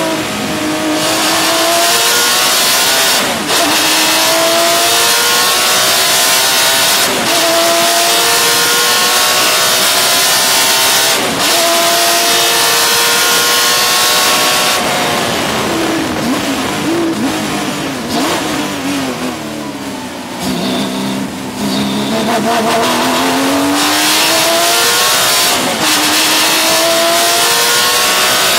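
Porsche 996 GT3 Cup race car's flat-six engine at full throttle, its pitch climbing and then dropping sharply at each quick upshift, several times in a row. About halfway through, the revs fall and waver up and down as the car slows through a corner, then it pulls hard through the gears again.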